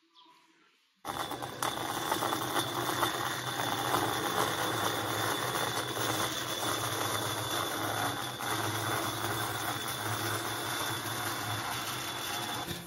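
Bandsaw running, its blade cutting a curve through an end-grain hardwood chopping board as the board is fed and turned. It starts abruptly about a second in and holds steady, with a thin high whine over the cutting noise.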